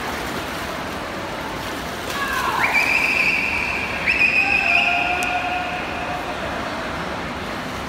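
Spectators cheering at a swim race, with shrill drawn-out yells over the steady din of crowd noise and splashing in an echoing indoor pool. Two long high yells start about two and a half and four seconds in.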